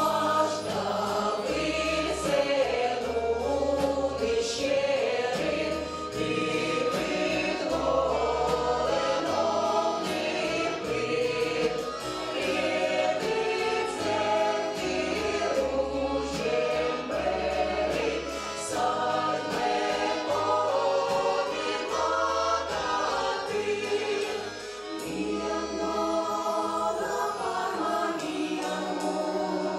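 A folk song ensemble singing in chorus, a Komi folk song in the Komi language, backed by a live band with bass and drums.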